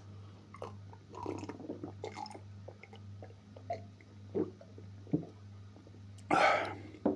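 A man gulping a drink from a small glass, with faint swallowing sounds, then a loud short breath out about six seconds in and a sharp knock as the glass is set down near the end. A steady low hum runs underneath.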